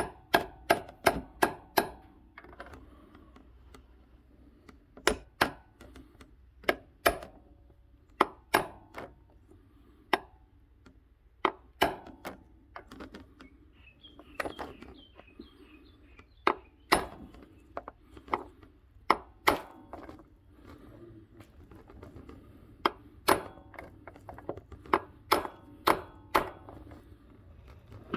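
Light metallic taps on a socket, driving a new camshaft actuator seal squarely into the engine's front cover. They come in short runs of quick taps with pauses between.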